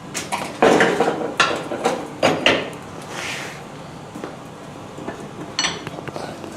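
Irregular metal clanks and scrapes of steel tools and a stainless steel workpiece being handled at a forge, a quick cluster of knocks in the first few seconds and another clank near the end, not a steady hammering rhythm.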